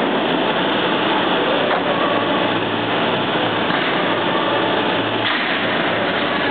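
Steady, loud machinery noise of a copper wire production hall, with a low hum that comes in about two seconds in and drops away a little after five seconds.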